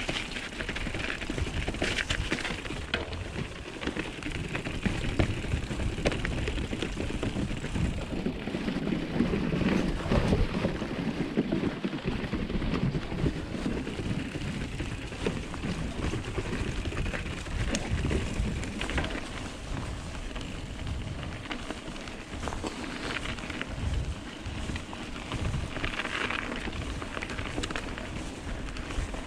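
Mountain bike rolling along a snowy forest trail: steady tyre noise over snow and dirt, with frequent small knocks and rattles from the bike over the bumps.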